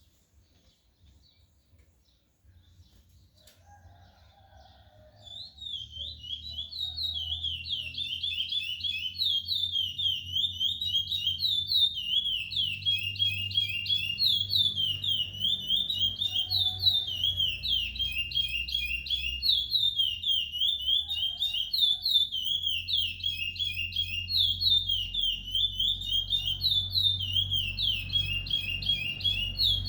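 Ten-month-old male chestnut-bellied seed finch (curió), still in brown juvenile plumage, singing a long continuous song of quick repeated whistled notes. The song starts about five seconds in, over a low steady hum.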